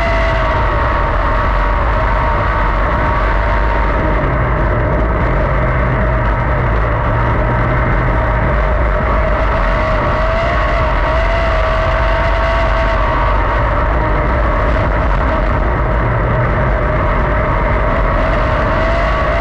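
410 sprint car's methanol-burning V8 engine running at race speed, heard from the cockpit, a loud steady drone whose pitch wavers slightly through the laps.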